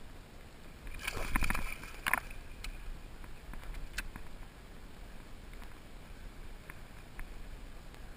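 Water lapping and sloshing around a kayak hull while a big bass pulls on the bent rod. A louder rush of splashing noise comes about a second in, and a few sharp clicks follow.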